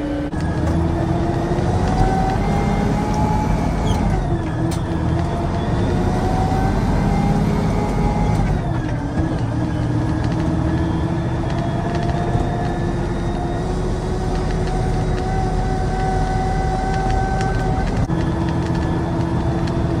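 A loaded concrete mixer truck's diesel engine pulls the truck along the road over a heavy low rumble. Its note climbs steadily and drops sharply at gear changes about four and nine seconds in, then shifts again near the end.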